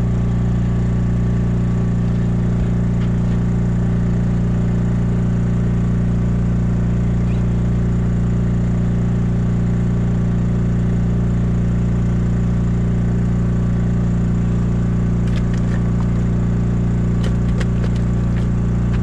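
A small engine running at a steady, unchanging speed, its low hum filling the whole stretch. A few light clicks and scrapes come near the end.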